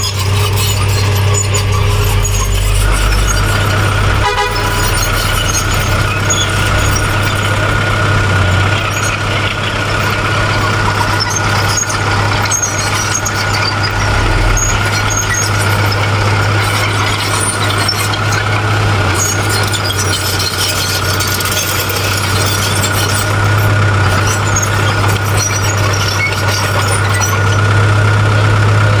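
Heavy diesel earthmoving machinery, a bulldozer and dump trucks, running steadily with a strong low hum; a steady high whine joins in about three seconds in and holds.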